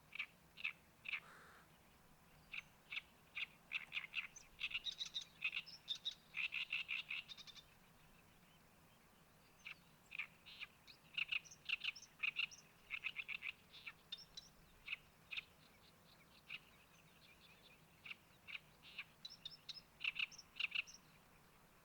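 A bird singing in runs of short, harsh, rapidly repeated notes, with a pause of about two seconds partway through.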